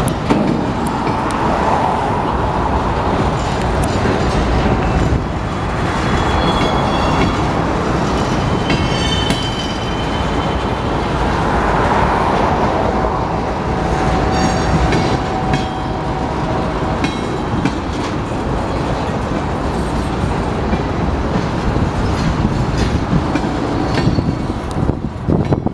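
A long Union Pacific freight train rolling slowly past at close range: a steady rumble of steel wheels on rail, with irregular clacks and a few brief, thin wheel squeals.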